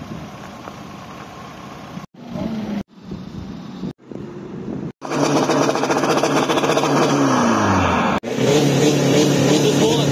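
SEAT saloon's engine revved hard, heard in short edited bits: a loud rev that drops away about eight seconds in, then after a cut the engine held steady at high revs.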